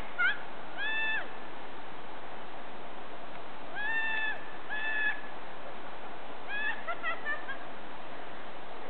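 High-pitched whoops and shrieks from women glissading down a snowfield: a few short calls about a second in and around four and five seconds, then a quick run of them near seven seconds, over a steady hiss.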